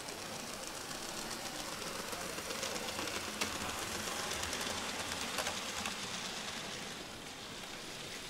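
Model train running along the layout's track: a steady rushing rumble with light clicks that grows louder in the middle and then eases off.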